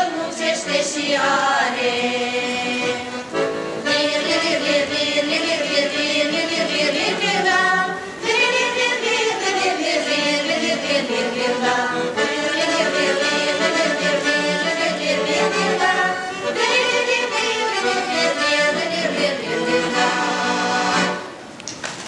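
Women's folk ensemble singing a Moldovan folk song in several voice parts, over a steady low held note from an accompanying instrument. The song ends about a second before the close, and applause begins.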